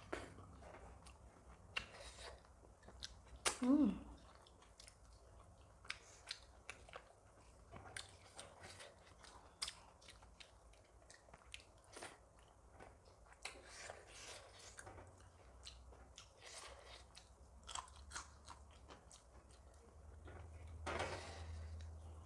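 Close-up chewing of a meal of soft maize dhido and curry, with wet mouth clicks and lip smacks scattered irregularly throughout. A brief hummed voice sound comes about four seconds in.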